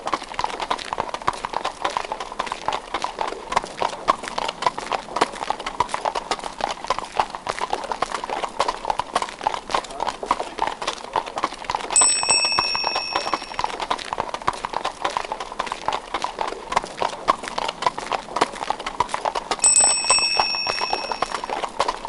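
Horse hooves clip-clopping steadily as a horse pulls a delman (two-wheeled horse-drawn carriage). The carriage's bell rings twice, about twelve seconds in and again near the end.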